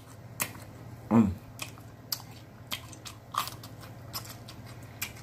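Close-miked chewing of a mouthful of smoked pork loin, with scattered wet mouth clicks and smacks. There is a short hum of the voice about a second in.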